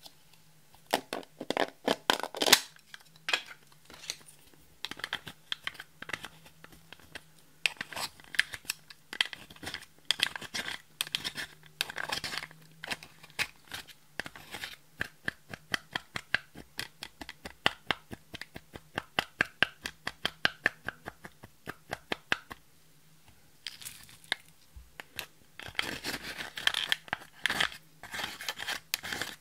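A small plastic brush scratching and prying pressed highlighter powder out of its plastic compact, the powder crumbling in rapid clicky scrapes that come in runs, with a short pause a little past two-thirds of the way through.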